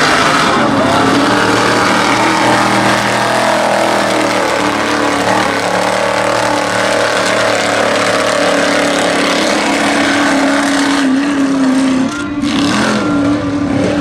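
Stretched square-body Chevy mega mud truck's engine running hard under throttle as it drives through the mud bog, its pitch wavering, with a brief drop about twelve seconds in before it picks up again.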